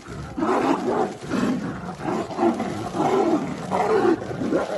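Two Bengal tigers fighting, growling and roaring in rapid, overlapping bursts, about two or three a second.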